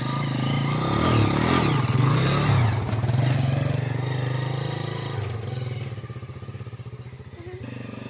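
Small step-through motorcycle engine running as the bike pulls away, its pitch going up and down over the first few seconds, then steadying and fading as it moves off.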